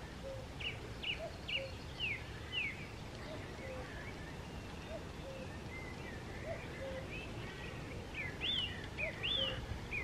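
Common cuckoo calling repeatedly, its two-note falling "cuck-oo" coming about every second and a half. A small songbird sings quick, higher sweeping notes near the start and again near the end.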